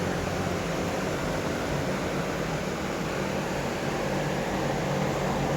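Steady hum and even hiss of a fan-like machine running, unchanging throughout.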